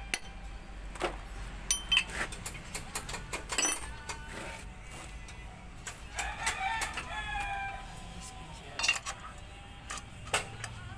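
Sharp metal clinks and taps of a spanner on the wheel-bearing nut of an Isuzu Elf truck hub, spread through the whole stretch. A rooster crows about six seconds in, one falling call lasting about a second and a half.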